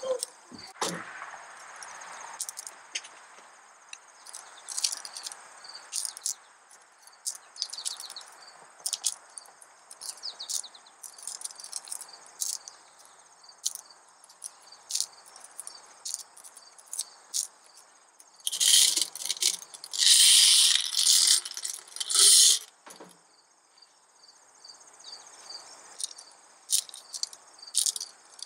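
Glass gemstones clicking against one another as they are set one at a time into a floating paper boat, loading it to test how much weight it holds before sinking. A louder clatter of stones lasts a few seconds about two-thirds of the way through, over a steady chirring of insects.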